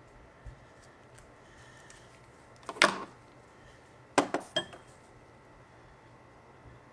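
Hard metal objects being handled: a short clatter a little under three seconds in, then three quick, sharp clinks just after four seconds.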